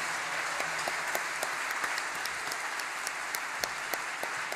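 Audience applauding: a steady wash of clapping with individual claps standing out.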